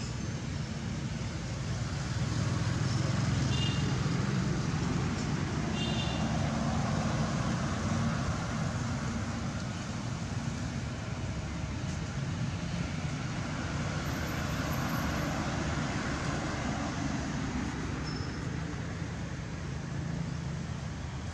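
Steady outdoor background rumble and hiss, like distant traffic, with two faint short high chirps about three and a half and six seconds in.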